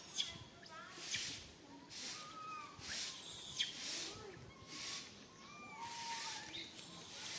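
Baby macaque crying: repeated high-pitched screams and squeals, one after another about every second, with whistle-like rises and falls in pitch. It is the fearful distress call of an infant left alone and calling for its mother.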